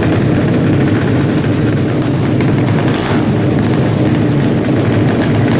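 Drag-racing motorcycle engines running loud and steady, holding a level pitch without clear revving.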